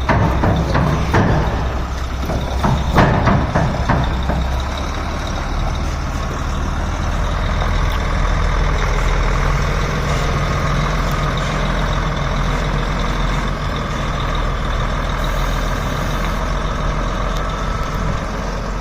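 Heavy truck engine running steadily, with a few sharp knocks and clicks in the first four seconds.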